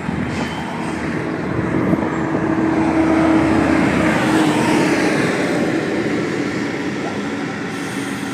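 Santiago Metro Line 1 rubber-tyred train running out of the tunnel and along the trench, with a steady hum and a whine that falls in pitch around halfway. The sound swells to its loudest about three seconds in, then eases.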